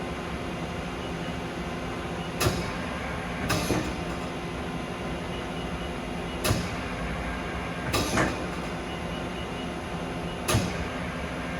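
Mori Seiki SL-204 CNC lathe running with a steady hum, broken every four seconds or so by a sharp metallic clunk and, about a second later, a shorter rattle of knocks from its moving parts.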